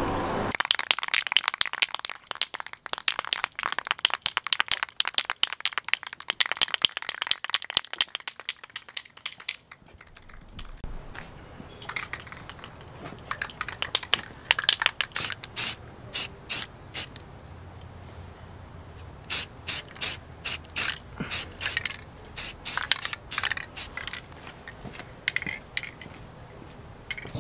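Aerosol can of Rust-Oleum Engine Primer shaken, its mixing ball rattling rapidly for about ten seconds. Then comes a string of short hisses as the primer is sprayed on in quick bursts.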